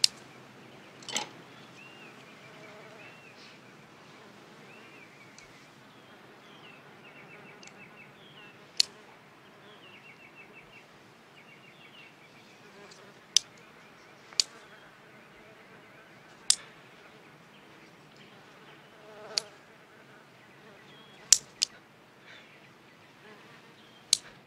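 A housefly buzzing with a wavering pitch as it flies about, broken by about ten sharp, brief clicks of chopsticks snapping shut in tries to catch it.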